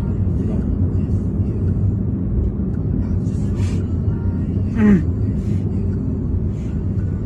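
Steady low road and engine rumble heard inside a moving car's cabin, with a short falling voice sound about five seconds in.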